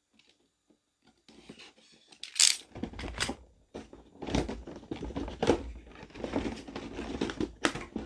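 Cardboard figure box being opened and handled: irregular rustling, scraping and crinkling of cardboard and packaging starting about a second in, with a sharp rip about two and a half seconds in.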